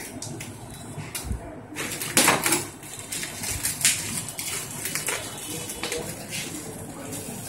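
Packing tape being peeled off a new photocopier and crumpled in the hands: irregular crackling and rustling, loudest about two seconds in.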